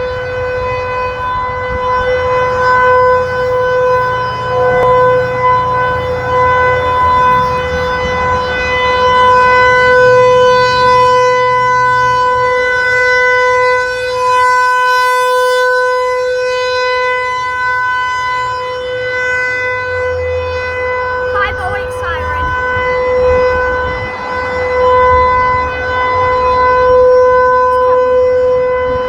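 Federal Signal 508 outdoor warning siren sounding a steady single-pitched tone during a test, swelling and fading in loudness every couple of seconds.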